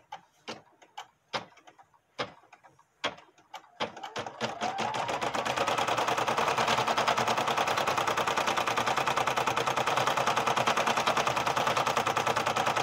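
Brother PE770 embroidery machine sewing a placement stitch through terry towel: separate needle clicks at first, then, about four seconds in, the motor whines up to speed into a fast, steady stitching rattle that stops near the end.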